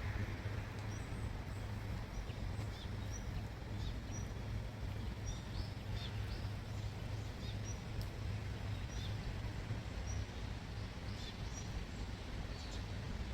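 A bird calling with short, high chirps repeated roughly once a second, over a steady low background rumble.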